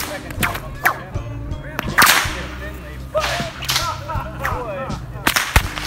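Bullwhip cracking: several sharp cracks at uneven intervals, the loudest about two seconds in.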